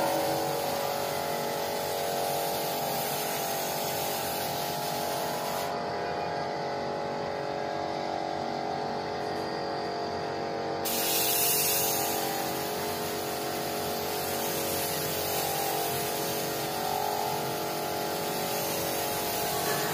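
Compressed-air gravity-feed spray gun spraying paint: a steady hiss of air and atomised paint over a steady hum. The high hiss drops away for about five seconds midway, then comes back.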